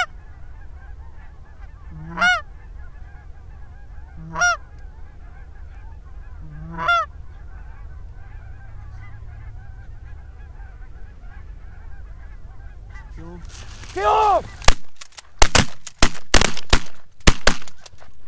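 Canada goose honks, single calls about every two seconds, then a flurry of loud honking; about fourteen seconds in comes a rapid string of shotgun shots from several guns firing at once, the loudest sound here.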